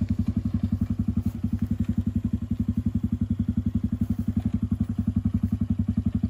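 The homemade buggy's 110cc gasoline engine running steadily at low revs, an even putter of about ten beats a second that neither rises nor falls.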